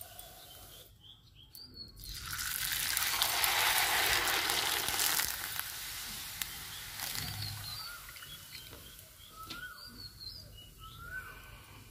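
A large rice papad sizzling loudly in hot oil in an iron kadhai, starting about two seconds in as it goes into the oil and fading over several seconds as it puffs up. Birds chirp in the background through the second half.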